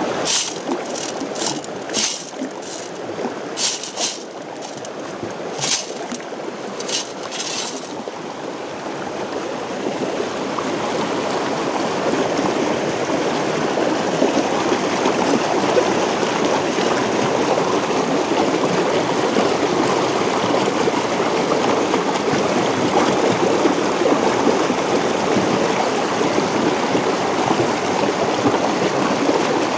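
Fast water rushing over rocks in a waterfall, a steady noise that grows louder about ten seconds in. A series of sharp clicks sounds over it in the first eight seconds.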